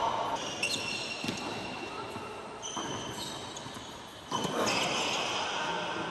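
Tennis ball bounced a few times on an indoor hard court before a serve, sharp separate taps that echo in the hall.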